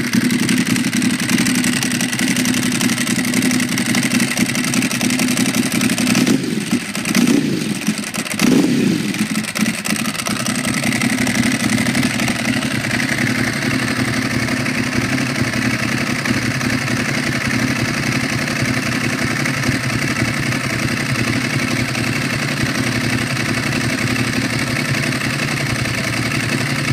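Ducati Monster S4RS's 998 cc Testastretta L-twin idling through Termignoni carbon silencers. It is revved briefly twice around six to nine seconds in, the pitch rising and falling each time, then settles back to a steady idle.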